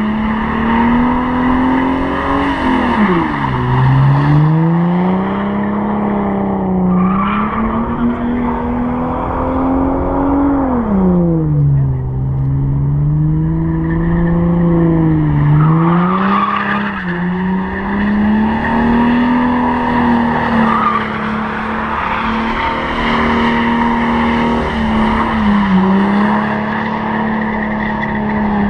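Holden VT Commodore doing a burnout: the engine is held at high revs with the rear tyres spinning and squealing on the asphalt. The revs sag twice and climb back, then stay high and steady toward the end.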